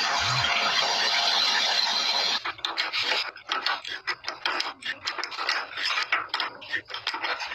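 A steady machine noise for about two seconds, which stops abruptly. Then a metal workpiece is filed or sanded by hand in quick, irregular rasping strokes, several a second.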